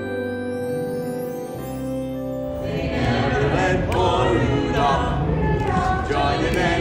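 Soft background music with long held notes and a rising sweep, then, a little over two seconds in, a small group of carolers singing Christmas carols together.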